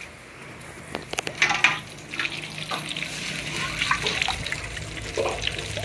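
Water running and splashing, with scattered clatter of kitchen utensils starting about a second in.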